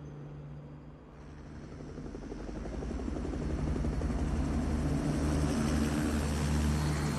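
Helicopter rotor beating rapidly over a steady low engine drone, growing louder from about a second in.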